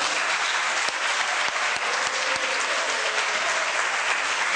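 An audience applauding steadily in a lecture hall, many hands clapping at once.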